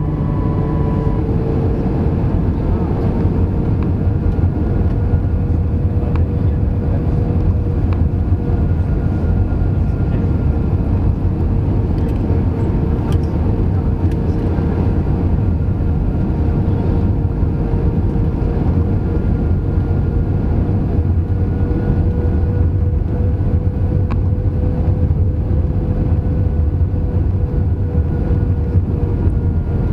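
Airbus A319 cabin noise from a window seat over the wing during the descent to land: a steady rumble of jet engines and rushing air with a steady hum held through it.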